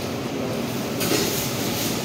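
Steady rushing, rumbling background noise with no distinct events.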